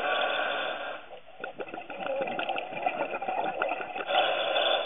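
Underwater sound from a diver's camera housing: a scuba regulator's breathing hiss and exhaust bubbling with crackling clicks. It drops away briefly about a second in and swells again near the end.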